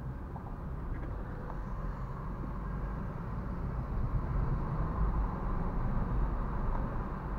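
Interior noise of a Renault Fluence driving slowly in traffic: a steady low engine and road rumble with an even hiss of tyre and wind noise, a little louder in the second half.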